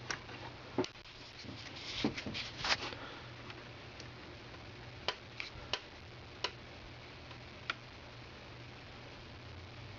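Small clicks and taps of hand tools and small parts being handled while a VCR's idler assembly is taken apart. A run of clicks in the first three seconds, then a few single clicks, over a faint steady hum.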